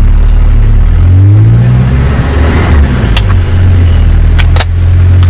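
Vehicle engine running loudly. About a second in it is revved, the pitch rising and then falling back, before it settles steady. Near the end there is a brief dip with a few clicks.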